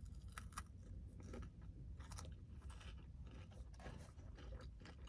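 A person chewing food close to the microphone: faint, scattered mouth clicks and smacks.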